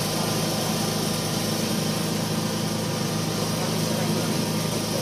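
Dump truck's engine idling steadily with an even low drone.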